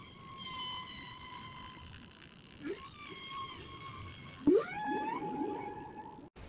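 Whale-like sound effect made with 'Preview 2' style editing effects: wavering, gliding tones over a steady high tone. There is a sharp, loud peak about two-thirds of the way through, and the sound cuts off abruptly near the end.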